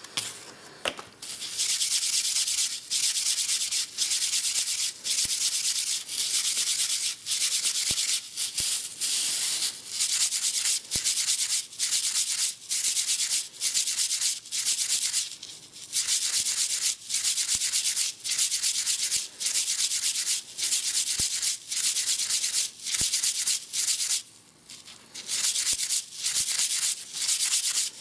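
A turned elm egg rubbed by hand on an abrasive pad: a steady rasping hiss of quick strokes, in runs broken by short pauses every second or two. Quieter for the first second or so, with a longer pause near the end.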